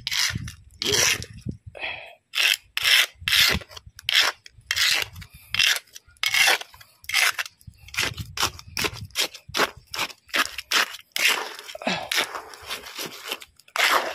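Small metal hand trowel scraping and turning a gritty wet concrete mix with gravel on a hard ground surface, in quick repeated strokes about two or three a second.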